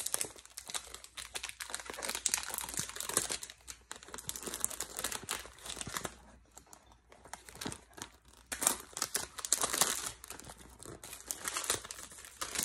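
Clear cellophane wrap being picked at, peeled and torn off a perfume box, crinkling in irregular bursts, with a quieter lull a little past the middle.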